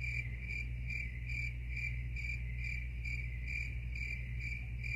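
A cricket chirping steadily, about two and a half high chirps a second, over a steady low hum.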